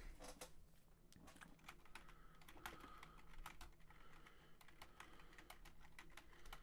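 Faint computer keyboard typing: a run of quick, irregular key clicks.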